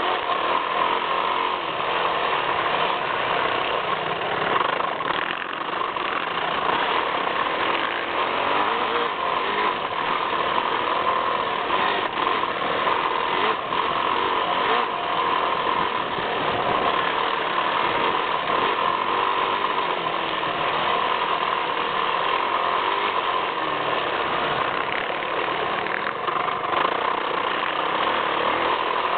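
Yamaha YZ450F motocross bike's single-cylinder four-stroke engine running hard around a dirt track, heard from right at the front fender, steady and unbroken.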